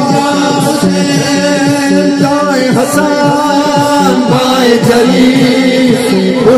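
Men's voices chanting a devotional Shia refrain (manqabat) in praise of Imam Hussain, the melody held on long notes over a steady beat of about two strokes a second.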